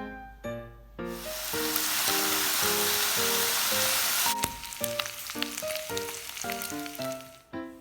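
Food frying in hot oil in a pan: a loud sizzle starts about a second in, then after about three seconds settles into crackling and spitting, over light piano music.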